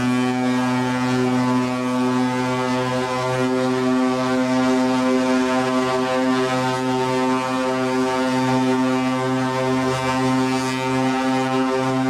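Hurtigruten ship's horn, sounded from the bridge, blowing one long, steady, low note that starts abruptly.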